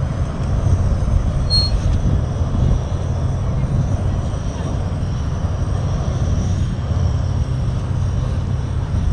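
Wind buffeting the microphone: a loud, steady low rumble, with a brief high chirp about one and a half seconds in.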